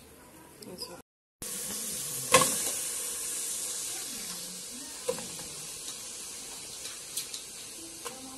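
Hot water pouring into a cooking pot onto dried fish and stockfish, a steady splashing hiss that eases off slowly. A sharp knock comes about two seconds in, with a few lighter clinks later.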